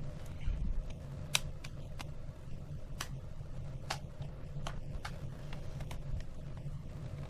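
Sharp plastic clicks, several at irregular intervals, as the snap-fit clips of a plastic cover on the underside of an HP 1000 laptop are pried and popped loose by hand. A steady low hum runs underneath.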